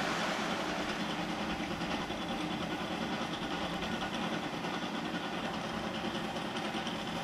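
A steady mechanical running sound, like an engine idling, with a low hum under a wide rushing noise.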